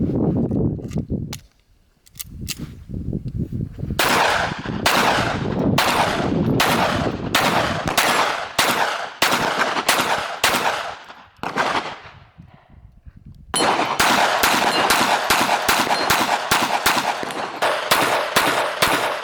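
Suppressed .22LR pistol shots from a Walther PPK/S: a steady string of shots at about two a second, a short pause, then a faster string of rapid shots.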